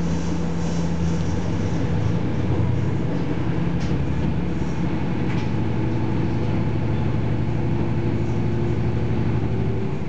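Cabin sound of a KiHa 40 series diesel railcar under way: the underfloor diesel engine's steady drone over the rumble of the wheels on the track. The engine note shifts about a second in.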